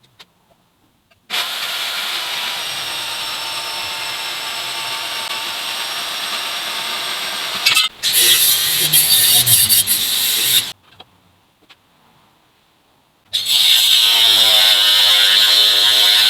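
A power tool running in three bursts: a long steady run, a louder, rougher run, then a pause and another loud run with a distinct whining pitch.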